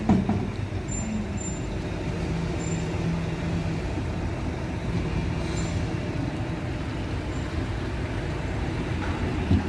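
Heavy diesel machinery running steadily with a low hum, with a knock at the start and another near the end.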